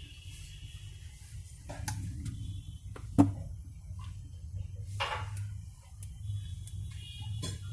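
A few sharp knocks and taps, the loudest about three seconds in, over a low steady hum. The knocks are handling sounds inside a refrigerator's freezer compartment.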